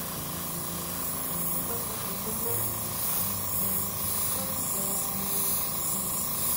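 Central Pneumatic airbrush spraying leather dye: a steady hiss of compressed air through the nozzle as the dye is laid on in long, even strokes.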